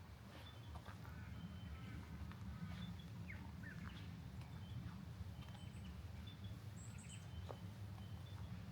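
Wild birds chirping and calling in short, scattered notes, some gliding in pitch, over a steady low rumble.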